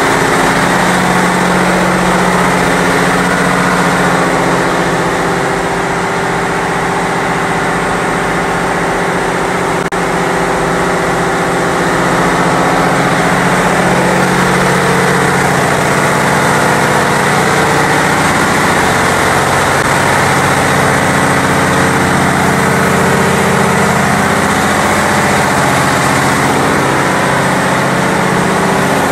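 Ship's engine-room machinery running: a loud, steady din of marine diesel engines with several held hums layered over a dense rushing noise, unchanging throughout.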